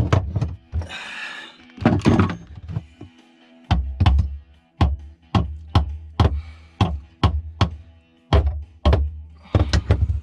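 Hammer blows on a screwdriver or chisel wedged against a boat's through-hull fitting, a run of sharp knocks at about two a second with a short pause near three seconds in. The blows are working the fitting loose from its 5200 adhesive bond. Steady background music plays underneath.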